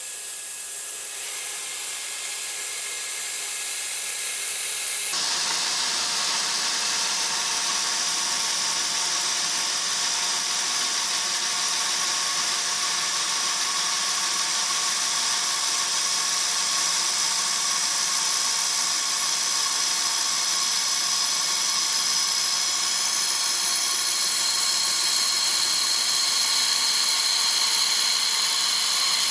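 Kearney & Trecker knee mill running, its cutter milling an angle into a 304 stainless steel square tube: a steady high-pitched cutting noise with a ringing machine whine, growing slightly louder and brighter near the end.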